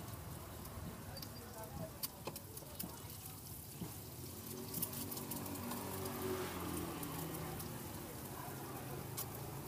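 Egg frying in hot oil in a large steel wok: a steady crackling sizzle with scattered sharp pops and light clicks from a metal spatula. A low drone sits in the background from about four to eight seconds in.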